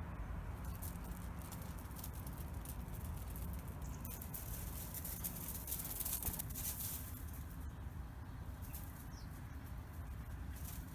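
A Cavalier King Charles spaniel's paws scampering over loose gravel, a crunchy patter loudest a little past halfway, over a steady low rumble, with one short high chirp near the end.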